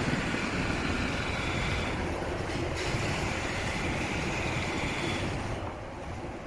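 Steady outdoor ambient noise, a broad rumble and hiss with no distinct events, easing a little in level about five and a half seconds in.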